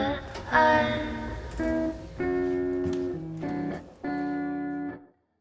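Background music: sustained instrumental chords that break off to silence near the end.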